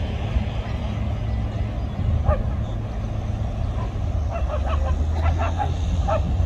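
Steady low outdoor rumble with brief snatches of people's voices about two seconds in and again near the end.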